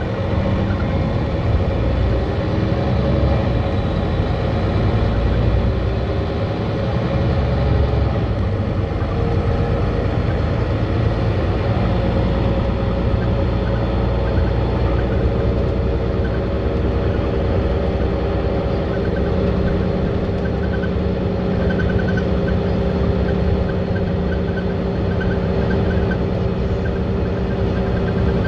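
City bus driving, heard from inside the passenger cabin: a steady low engine and road rumble with a constant hum, the engine note holding steadier in the second half.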